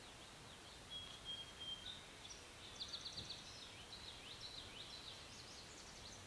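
Faint birdsong: a thin held whistle, then a run of short quick chirping notes over quiet outdoor background noise.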